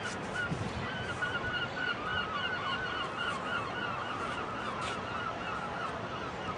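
A flock of birds calling continuously, with many short, overlapping cries.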